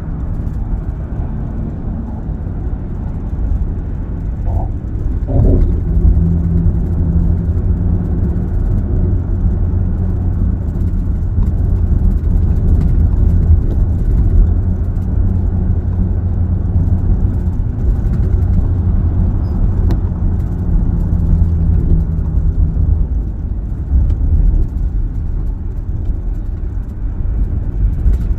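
A car driving at highway speed, heard from inside the cabin: a steady low road and tyre rumble with a faint engine hum.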